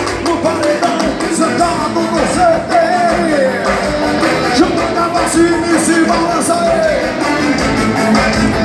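Live dance-band music with a steady beat and a gliding melodic lead line over it.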